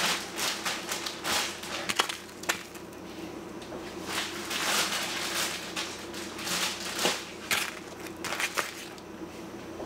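Plastic zip-top freezer bags crinkling and rustling in irregular bursts as they are handled and filled with slices of raw pork fatback, with a few sharp clicks.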